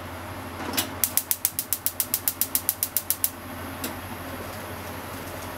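Gas stove's spark igniter clicking rapidly, about seven clicks a second for a couple of seconds, then one last click, as the burner is lit. A steady hiss runs underneath.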